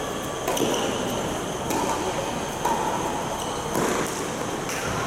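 Tennis balls knocking on hard courts about once a second, with short squeaks of shoes, echoing in a large indoor tennis hall.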